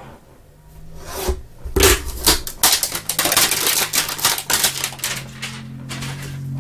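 A trading-card hanger box and its wrapped packs being torn open by hand: quick crinkling crackles and ripping of plastic wrap and cardboard, thickening from about two seconds in.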